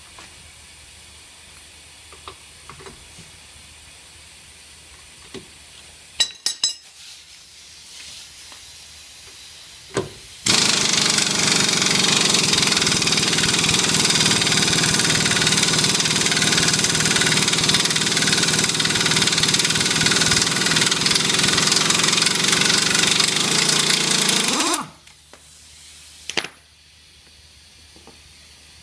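Pneumatic impact wrench hammering on a Nissan Micra's rear hub nut. It runs as a loud, fast, steady rattle for about fourteen seconds, starting about ten seconds in and cutting off suddenly. A few sharp metal clicks come before it.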